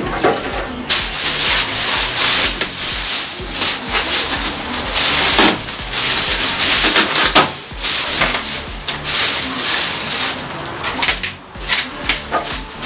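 Clear plastic wrapping on a new appliance crinkling and rustling in uneven surges as it is handled and pulled at.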